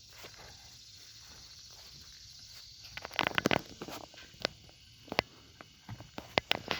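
Horse hoofbeats: a quick run of sharp knocks about three seconds in, then single knocks every half second or so, over a steady high hiss.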